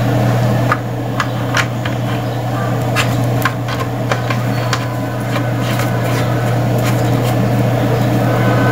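Small plastic clicks and taps as a Wi-Fi router's antenna is handled and fitted onto its connector, scattered irregularly over a steady low hum.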